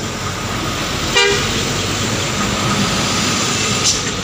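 Trucks and a car grinding up a steep hill, engines running steadily under load, with one short horn toot about a second in.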